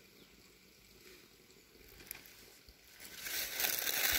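Sheets of paper rustling as they are handled, close by, starting about three seconds in after a quiet stretch.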